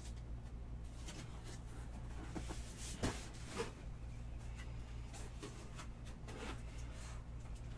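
Soft handling noises of objects being moved about on a table: scattered light rustles and knocks, the sharpest about three seconds in and another just after, over a steady low hum.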